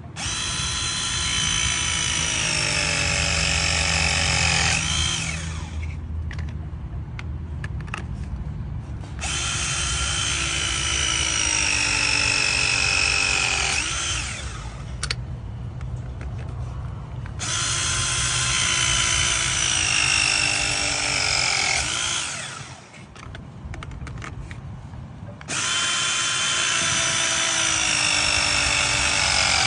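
Battery press tool motor running through four pressing cycles. In each one the whine slowly falls in pitch as the jaws close on a press fitting, and the gaps between cycles carry a few clicks.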